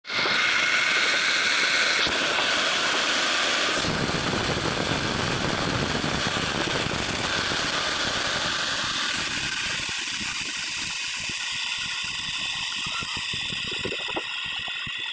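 Electric core-cutting drill running, a steady motor whine over a grinding noise as the diamond core bit cuts. A deeper rumble joins about four seconds in and thins out later.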